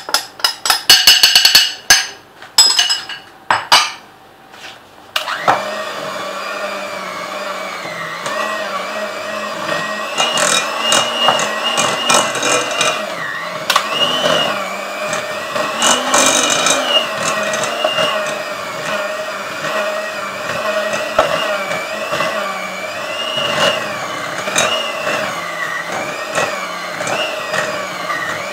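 Loud knocks and clinks of a small metal bowl against a glass mixing bowl as flour is tipped in. About five seconds in, an electric hand mixer starts and runs steadily, its beaters working through crumbly cookie dough, its pitch wavering slightly.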